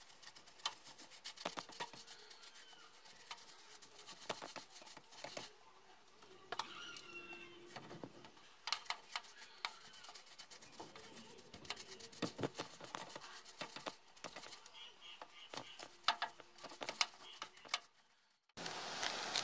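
A stiff paintbrush scrubbing kerosene over a grimy metal gearbox casing: irregular scratchy strokes and small clicks of the brush against the metal. Near the end the sound drops out briefly and a louder, steadier noise begins.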